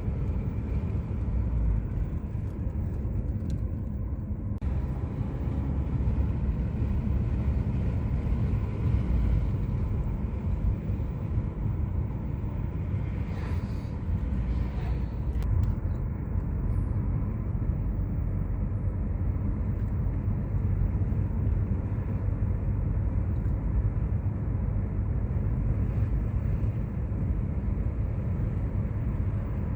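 Sea waves washing onto a beach, a steady low roar of surf with no pause.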